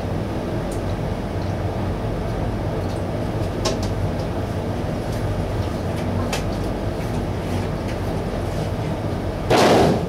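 A steady low machine hum, with a few light clicks as cans and cups are handled. Near the end there is a short, loud burst of noise.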